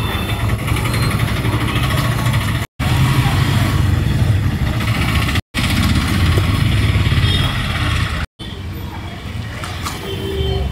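Street traffic noise with a steady low engine rumble from passing motorbikes and vehicles, cut off briefly three times.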